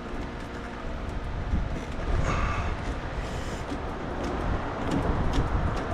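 Close-up handling noise of hands working among car parts: rustling and scraping with scattered light clicks and knocks over a low rumble, with two brief scrapes about two and three seconds in.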